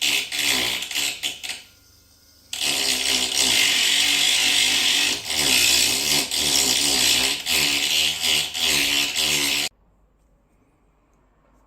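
A small power tool grinding the chipped corner of a glass-ceramic hob to cut a facet on it. It runs in a short burst, stops briefly, then runs again for about seven seconds with its pitch wavering under load, and cuts off suddenly near the end.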